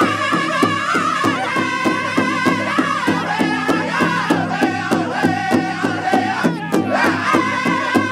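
Powwow drum group singing high, strained Northern-style vocals over a big hide drum that the singers strike together with drumsticks in a steady, even beat. The voices drop away briefly near the end and then come back in over the unbroken beat.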